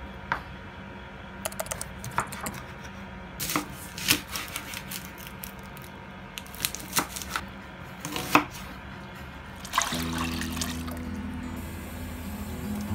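Kitchen knife slicing a tomato and a red onion on a wooden cutting board: irregular sharp knocks of the blade through the vegetable onto the board. About ten seconds in, the knocks give way to a louder, steady sound as ingredients go into a pan on the stove.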